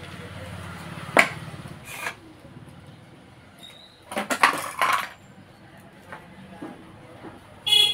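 Metal parts of a submersible water pump knocking and clinking as they are handled: a sharp knock about a second in, another just after, a quick rattle of several clanks around the middle, and a short ringing metallic clink near the end.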